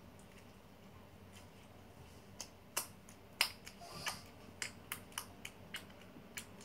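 Foam slime being handled, giving faint, scattered sharp clicks and crackles, about one or two a second, starting a couple of seconds in.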